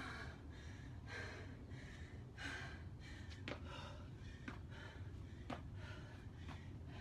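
A woman breathing hard and gasping from exertion during jump lunges, her legs worn out. Short sharp taps come about once a second.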